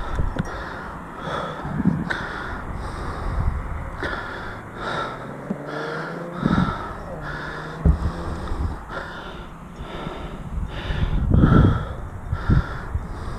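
Santa Cruz Nomad mountain bike rolling fast down a dry dirt singletrack: tyre noise, knocks and rattle over bumps, and wind buffeting the camera mic. Over it the rider breathes hard in quick, regular breaths.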